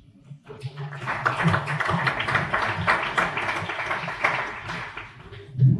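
Audience applauding: many hands clapping at once, starting about half a second in and dying away near the end.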